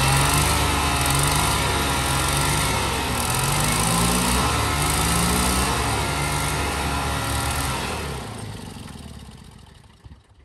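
An engine running and revving, its pitch rising and falling several times, then fading away over the last couple of seconds.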